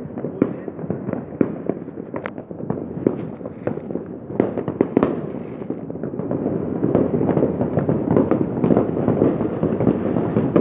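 Many fireworks and firecrackers going off at once: a continuous rattle of overlapping bangs and crackles, with sharper single reports standing out every second or so.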